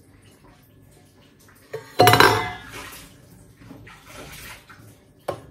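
Dishware clattering: a knock, then a loud ringing clatter as a cup or dish is knocked about about two seconds in, dying away quickly. A single sharp knock follows near the end.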